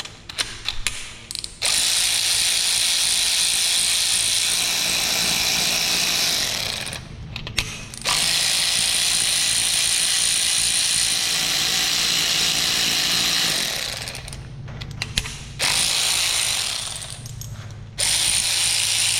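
Power ratchet running in four long bursts of several seconds each, with short pauses and a few clicks between, spinning bolts out of a Ford 5.0 Coyote V8 during teardown.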